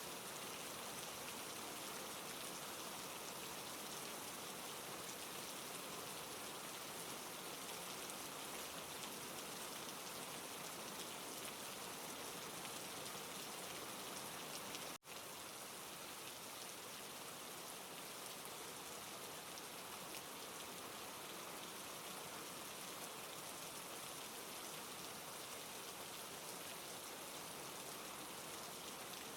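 Steady rain falling, an even hiss of drops, that cuts out for a split second about halfway through.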